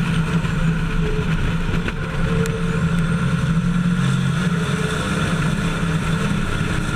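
Racing truck diesel engine heard through an onboard camera, running steadily at high revs under race load.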